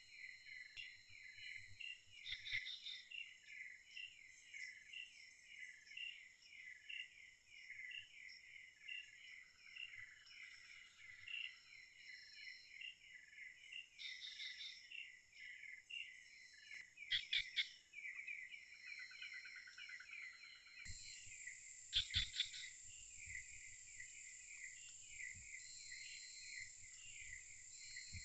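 Tropical forest insect chorus: rhythmic chirping repeating a few times a second over steady high-pitched insect drones. Two short runs of quick, sharp clicks, one about two-thirds of the way in and one a few seconds later, are the loudest sounds.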